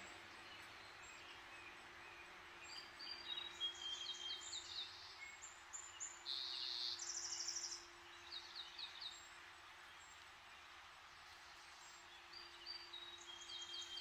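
Songbirds singing in the background: a run of high trilled and buzzy phrases starting about three seconds in and lasting several seconds, and another starting near the end. Under them runs a steady hiss of distant road traffic with a faint steady hum.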